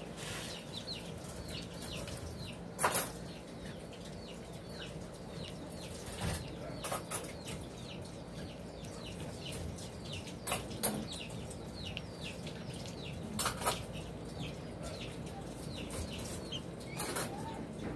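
Chicks peeping over and over in short falling chirps, with a few sharp taps as their beaks peck at cheesecake on a foil paper plate.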